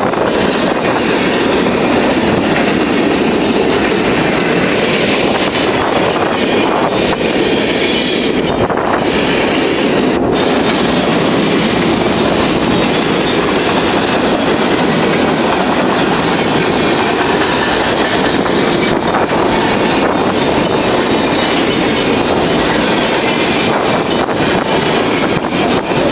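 Empty centerbeam lumber flatcars rolling past at speed, steel wheels clacking over the rail joints in a loud, steady, continuous rumble and rattle.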